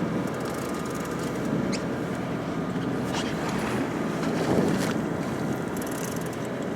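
Offshore sport-fishing boat's engine running steadily with a low hum, under wind noise on the microphone.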